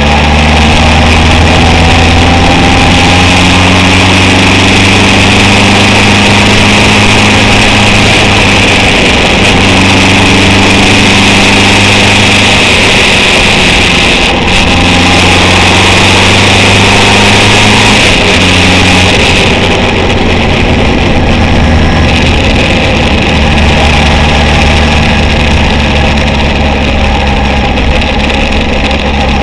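Honda CB750 chopper's air-cooled inline-four engine running under way, its note stepping up and down several times with throttle and gear changes and briefly dipping about halfway through. A loud rush of wind and road noise runs over it.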